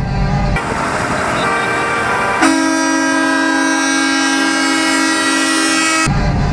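A truck's air horn sounds one long, steady blast that begins about two and a half seconds in and cuts off abruptly near the end. Before the blast there is a stretch of mixed traffic noise.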